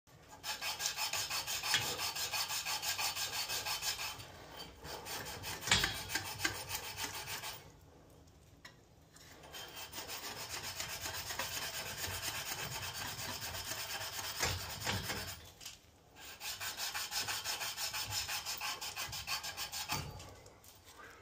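Emery cloth drawn rapidly back and forth around the end of a copper pipe, a rhythmic scraping that cleans the pipe to bright metal ready for soldering. The scraping comes in four bouts with short pauses between them.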